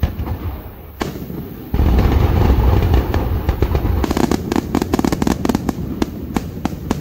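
Aerial fireworks display: a couple of sharp bangs, then from about two seconds in a dense volley of shells going off in a continuous rumble, turning into many rapid sharp cracks in the second half.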